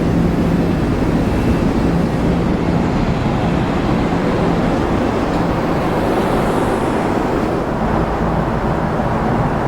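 Steady cabin noise of a Boeing 767-400ER airliner: an even rush of engine and air noise with a faint low hum underneath.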